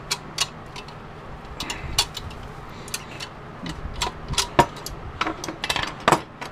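A quick irregular run of sharp metallic clicks and clinks, about twenty over several seconds: hand cutters snipping the faucet's copper tubing and the metal pieces knocking together as they are handled.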